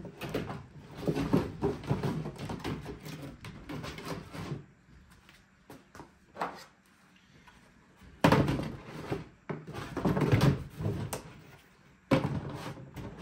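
Removed car trunk parts, carpet, trim panels and hardware, being shifted about in a plastic tub. There are a few seconds of rustling and clatter, then after a lull a few louder hollow thunks.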